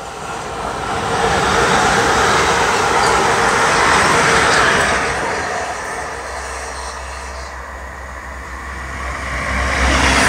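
An electric multiple unit passing at speed, a steady rush of wheels on rail that builds over the first two seconds and holds to about five seconds in. A Class 158 diesel multiple unit then approaches, and the low rumble of its diesel engine rises near the end as it draws close.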